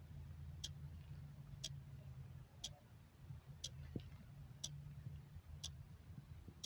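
Clock ticking faintly and evenly, one sharp tick a second, over a low steady hum.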